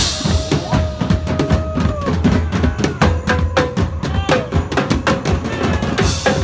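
Drum-driven music with a fast, steady beat and a held melody line that steps between notes, with a cymbal crash at the start and another near the end.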